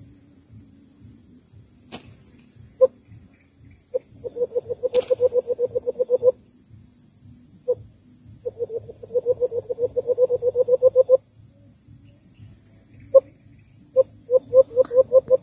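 A person imitating the call of the white-eared brown dove (alimokon), blowing low hoots through cupped hands. Single hoots alternate with three quick runs of about five hoots a second. This is the call used once the doves are near, to coax them in closer to the bait.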